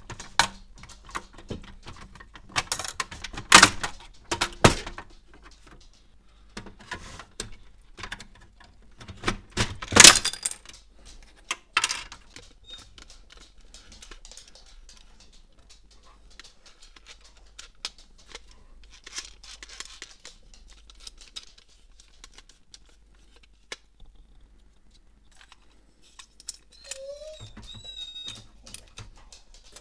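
Hard plastic parts of an HP Photosmart C3180 printer clicking, knocking and clattering as its black plastic paper-feed assembly is worked loose by hand and lifted out. The loudest knocks come about four and ten seconds in, followed by quieter handling ticks.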